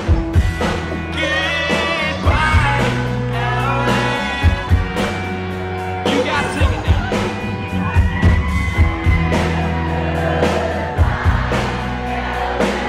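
Live rock band playing loudly, with drums keeping a steady beat under bass and electric guitar, and a voice singing over it.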